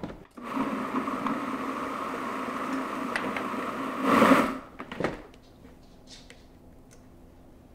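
Food processor running on a crumbly date mixture that is being processed until it forms a ball. It hums steadily for about four seconds, surges louder, then shuts off, followed by a short knock about a second later.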